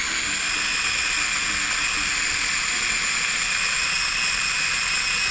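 Cuisinart mini food chopper's electric motor running steadily with a high whine, its blade blending mayonnaise into a chopped herb and spice mixture.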